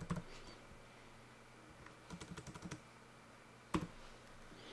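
Faint computer keyboard keystrokes: a few clicks at the start, a quick run of about six keystrokes around two seconds in, and a single sharper click near the end.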